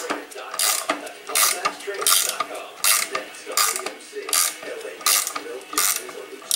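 Ratcheting wrench clicking in short strokes, about one burst every three quarters of a second, as it turns a Pitman arm puller's forcing screw to press a bushing out of a trailing arm. The bushing is almost out.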